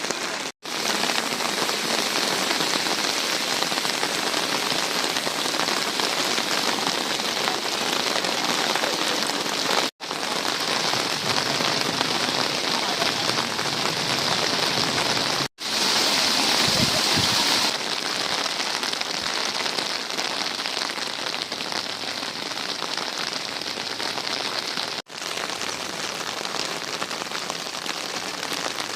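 Steady rushing noise of water, continuous and without rhythm, broken by four brief drops to silence where separate clips are joined; one stretch after the middle is louder and hissier.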